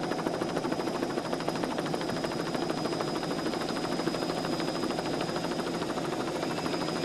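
Helicopter rotor and engine noise: a steady, fast chopping that does not change.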